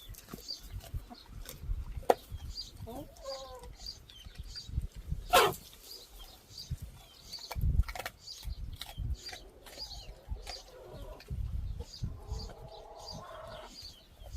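A pet animal chewing watermelon: a run of wet crunching and smacking clicks with low thumps. Short pitched animal sounds come about three seconds in and near the end, and a loud falling squeal about five seconds in.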